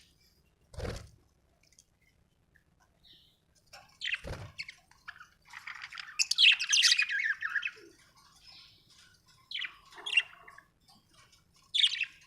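Budgerigars chirping in short scattered bursts, breaking into a dense stretch of chatter about halfway through. Two dull thuds sound about one and four seconds in.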